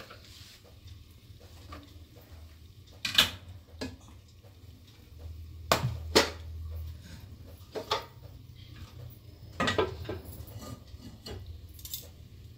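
Stainless-steel pot and metal pot-lifting tongs clanking as the pot of cooked rice is gripped, lifted and set down on the counter. About nine separate sharp metal knocks come a second or so apart.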